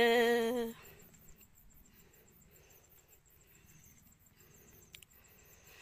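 A long held sung note of a Red Dao folk song ends about two-thirds of a second in. Then comes near silence with only a faint high, evenly pulsing hiss.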